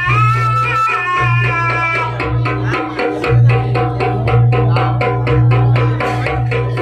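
Jaranan gamelan ensemble playing: a sustained melodic line over a steady low drone in the first couple of seconds, then fast, dense drumming carries on.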